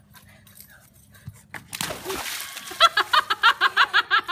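Water splashing in a plastic kiddie pool, then a young child's rapid, high-pitched laughter, about seven short bursts a second.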